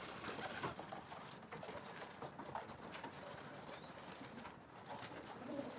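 Faint cooing of domestic pigeons.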